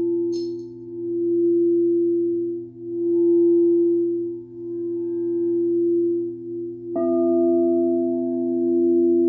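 Singing bowls ringing: a sustained, slowly pulsing wobble of several steady tones, with a second, higher-pitched bowl struck about seven seconds in and ringing on with the first.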